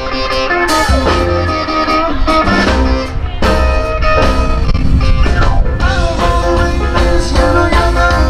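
A band playing blues-rock music, with electric guitar leading over bass and drum kit; it gets a little louder about three and a half seconds in.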